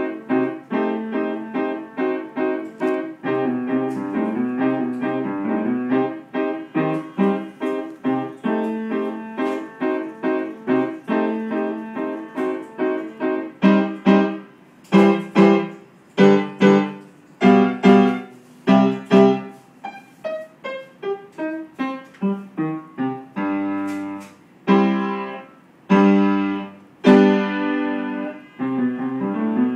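Upright piano being played solo: an even, flowing run of notes for the first half, then from about halfway loud separated chords, struck roughly once a second, that ring and die away between strikes.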